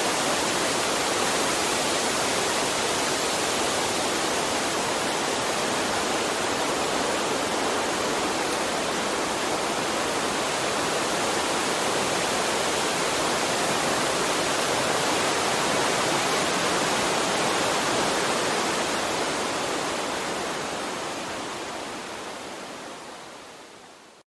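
Water of a stream flowing and rushing steadily, fading out over the last few seconds.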